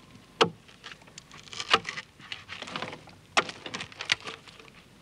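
Axe blows chopping into a wooden log: four sharp strokes at uneven intervals, with lighter knocks between them.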